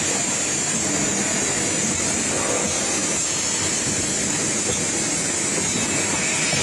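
Automatic screen printing machine for cylindrical bottles running: a steady mechanical noise with a constant high hiss.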